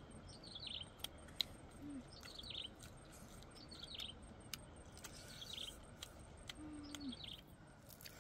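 A bird calling over and over: a short, high, falling chirpy phrase about every second and a half. Faint scattered clicks sound alongside.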